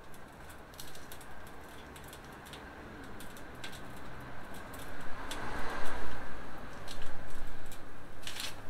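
Scattered light clicks and rustling of thermometer probe cables being handled and plugged into a meat thermometer unit, getting busier about halfway through, over a low steady rumble.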